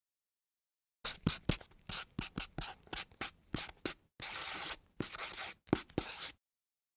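Felt-tip marker writing on cardboard: a quick run of short squeaky strokes, then a few longer scratching strokes, ending about a second before the end.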